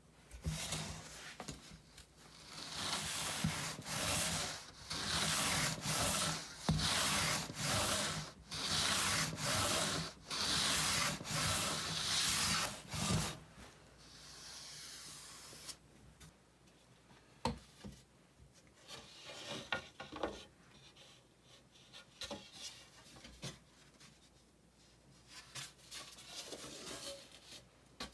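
Western red cedar guitar top being jointed by hand, with repeated long rubbing strokes of a tool along the wood, roughly one a second, through the first half. After that come quieter scattered taps and handling sounds.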